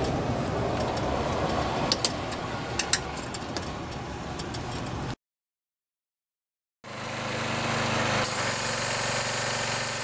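Five seconds of rattly mechanical noise with a few sharp clicks, then silence. About seven seconds in, a pressure washer's 6.5 hp Briggs and Stratton L-head engine is running steadily over the hiss of the spray wand, running again after its blown head gasket was replaced.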